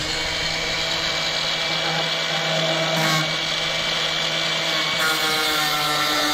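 A hand-held cordless power tool's electric motor running continuously at a steady whine while it works on the damaged plastic CVT variator cover of a Can-Am 6x6. Its pitch sags slightly near the end.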